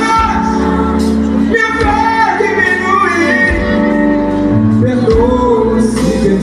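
Live gospel song through a stage PA: a man sings a held, bending melody over acoustic guitar and a backing band with steady bass.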